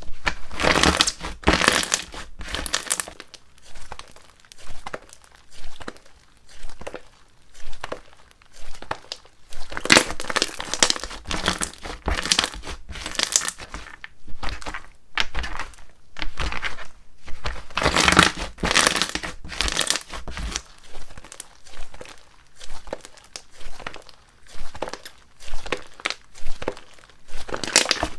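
Slime squished and pulled by hand, making repeated sticky crackling and squelching sounds in clusters, with quieter stretches between.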